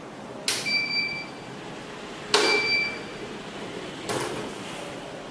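Active 108 burglar alarm panel being switched into day mode with its key: three sharp clicks about two seconds apart. The first two are each followed by a short, high, steady beep from the panel.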